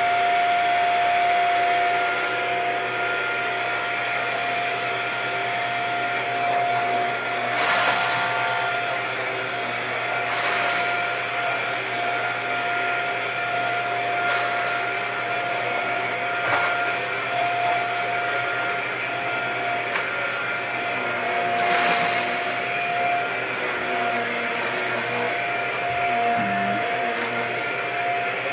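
Corded upright vacuum cleaner running steadily with a constant whine as it is pushed back and forth over a rug, sucking up scattered crumbs. Several brief hissing surges come and go as it works.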